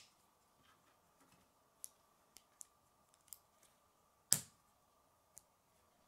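Plastic K'nex pieces clicking together as a rod is pushed into a connector: a few light clicks, then one sharp snap a little after four seconds in as the piece seats, and one more light click near the end.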